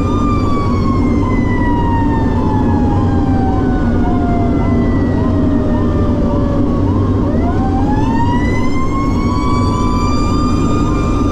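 Fire engine siren sounding en route, its pitch sliding slowly down for about seven seconds, then climbing back up over the next three. A second siren sweeps quickly about twice a second, and the truck's engine drones steadily underneath.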